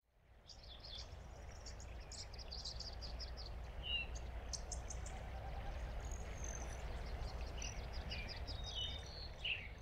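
Outdoor nature ambience: small birds chirping over a steady low rumble, fading in over the first second.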